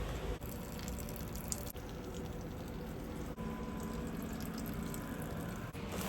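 Tap water running steadily into a kitchen sink while a replaced garbage disposal is tested for leaks, with a few brief abrupt breaks.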